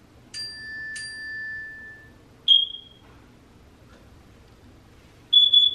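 Bright, ringing clinks of hard objects: two strikes of the same pitch that ring on for about a second, then a shorter, higher clink, and near the end a quick rattle of several clinks.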